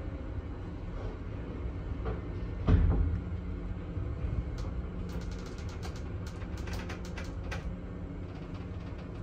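1990s ZREMB passenger elevator car running down the shaft, a steady low rumble and hum. There is one loud thump about three seconds in, and a run of sharp clicks and rattles a little later.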